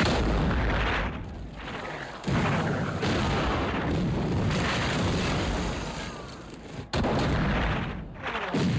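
Artillery bombardment of 18th-century siege guns: four heavy blasts of cannon fire and bursting shells, at the start, a little over two seconds in, about seven seconds in and near the end, each dying away slowly over a few seconds.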